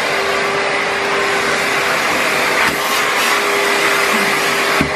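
Henry wash carpet and upholstery cleaner's vacuum motor running steadily with a constant hum, its upholstery hand tool drawn over a sofa cushion in suction mode, now pulling water back up. The sound dips briefly just before the end.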